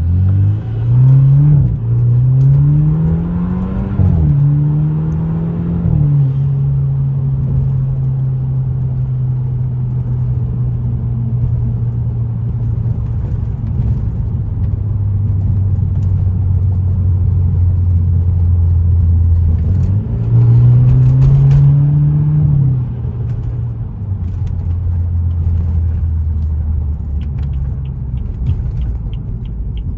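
BMW F30 328i's turbocharged four-cylinder engine accelerating through two quick upshifts, its pitch rising and then dropping at each shift, then cruising steadily. About twenty seconds in it pulls up again briefly before settling back. A fast, regular ticking starts near the end.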